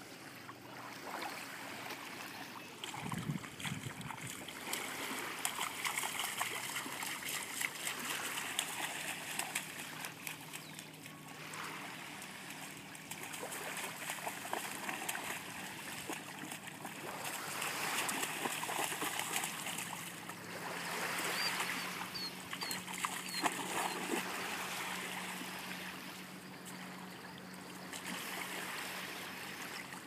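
Small waves washing onto a sandy shore, swelling and fading every few seconds, with splashing as a dog and a person wade and kick through the shallow water.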